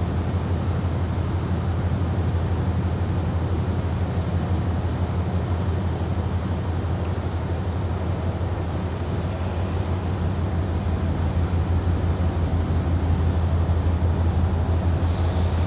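Steady low rumble of a boat's diesel engine, pulsing fast and even, with a hiss rising over it near the end.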